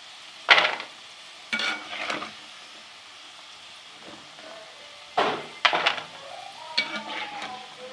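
A spoon scraping and knocking against a kadhai as fried besan dumplings are lifted out of hot oil, in a series of separate strokes over a soft, steady sizzle.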